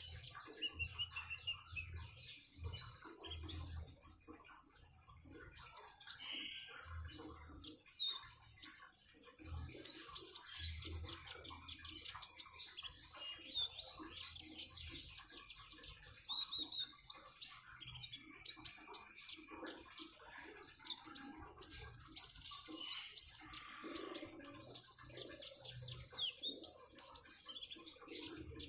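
A konin songbird chirping in quick runs of short, high notes, with brief pauses between the runs.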